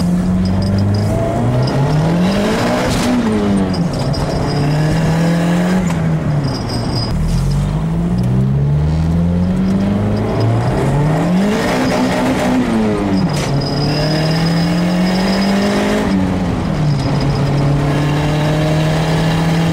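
Turbocharged Honda Civic D16Z6 engine running without its exhaust, so it is effectively straight-piped after the turbo: it revs up and drops back several times as the car accelerates through the gears. A high turbo whistle sits over the engine at times.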